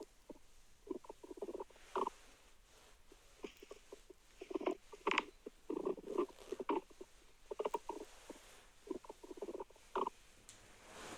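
Human stomach and intestines grumbling during digestion: irregular runs of short gurgles and squeaks with brief quiet gaps between them.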